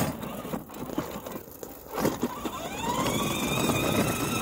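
Electric drive motors and gearboxes of a Kid Trax 12-volt ride-on zero-turn mower whining: faint at first, then about two seconds in the whine rises in pitch and grows louder as the mower speeds up, and holds steady. It is running slower than normal, which the owner puts down to a battery that needs charging.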